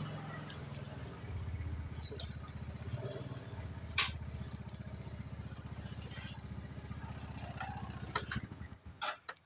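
A small engine running steadily with a fast, even pulse, dying away shortly before the end. A sharp click sounds about four seconds in.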